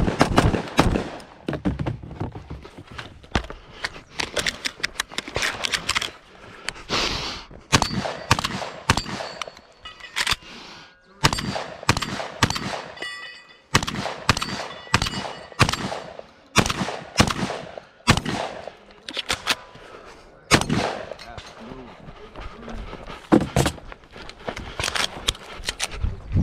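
Rapid gunfire on a 3-gun stage: a scoped rifle fired in quick strings, then a shotgun fired shot after shot, with a brief lull about halfway through.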